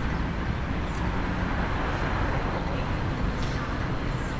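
Steady ambient noise of a busy public place: a low traffic rumble with faint voices, swelling and fading once around the middle as a vehicle passes.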